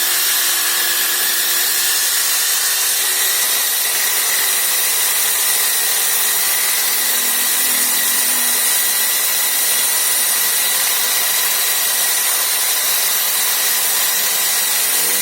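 Electric drill mounted as a makeshift table saw, its saw blade spinning and cutting wood with a steady, even whine.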